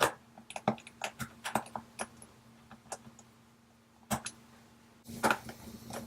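Small metal tools clicking and tapping on a phone's metal shield plate and its tiny screws while a fiddly screw is worked into place. The clicks are sharp and irregular, with a brief scraping rustle near the end.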